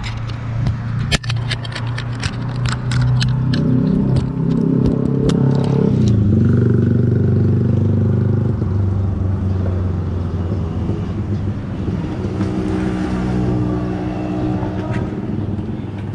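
Motor vehicle engine running on the road, its pitch rising and falling as it revs and passes, over a steady low rumble. A quick, irregular run of sharp clicks sounds in the first few seconds.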